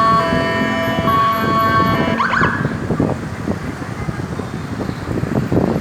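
Ambulance two-tone siren alternating between a high and a low pitch about once a second. A little after two seconds in it stops with a short upward sweep, leaving traffic noise.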